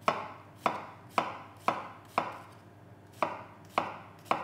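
Chef's knife slicing a halved onion lengthwise on a wooden cutting board, the blade knocking the board about eight times, roughly two a second, with a short pause in the middle.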